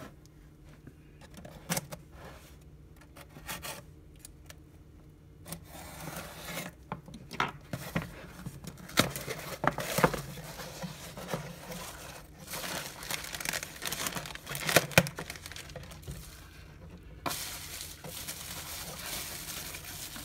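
A cardboard mailing box being torn open by hand: rustling and scattered sharp cardboard crackles, sparse at first and busier after about six seconds. Near the end, bubble wrap crinkles steadily as it is pulled out of the box.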